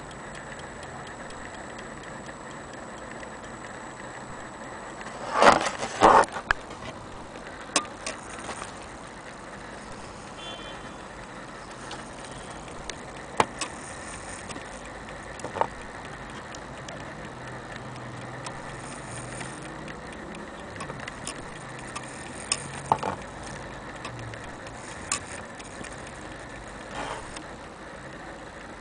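Brass Junghans mechanical wall clock movement being handled, giving scattered sharp metallic clicks, with a louder rattle of clatter about five to six seconds in.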